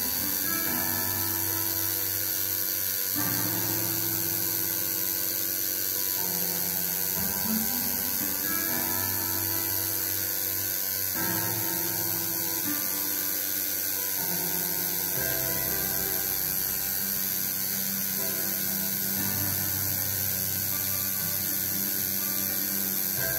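Home-rebuilt coil tattoo machine buzzing steadily as it runs a single needle along lettering in the skin.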